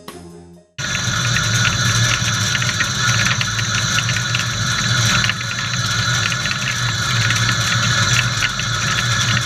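Samsung SL 30 CNC lathe running, a steady mechanical noise with a low hum and a dense fine crackle. It cuts in abruptly about a second in, as the tail of background music dies away.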